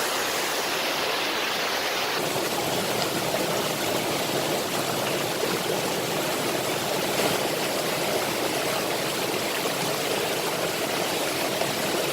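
Waterfall rushing steadily over rocks, a constant close wash of falling water; its tone shifts slightly about two seconds in.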